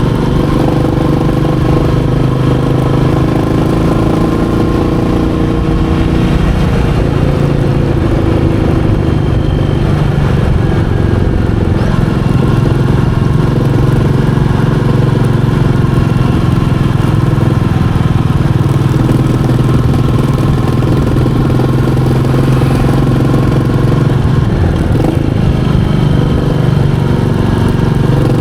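Royal Enfield Meteor 350's single-cylinder engine running on the move, a steady note that briefly dips and rises about six seconds in and again near the end.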